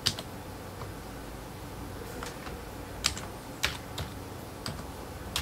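Computer keyboard keys pressed one at a time as an email address is typed: about nine separate clicks at an unhurried, uneven pace over a faint steady hum.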